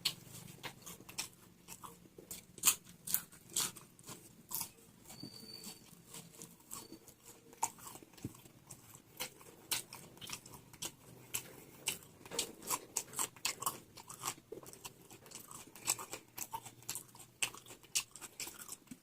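A person chewing and biting crunchy food close to the microphone, raw salad vegetables and vada: irregular crisp crunches, sometimes several in quick succession.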